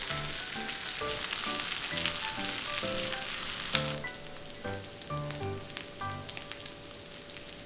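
Pork belly (samgyeopsal) sizzling and spitting fat on a hot ridged grill plate. The sizzle is loud for the first four seconds, with a sharp click just before it drops to a softer sizzle.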